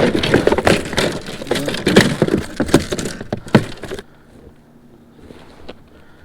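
Rapid clattering and knocking from something being handled, which stops abruptly about four seconds in and leaves a faint low background.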